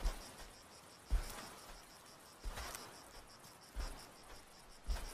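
Crickets chirping in a steady pulsing trill, with a dull low thump about every second and a quarter.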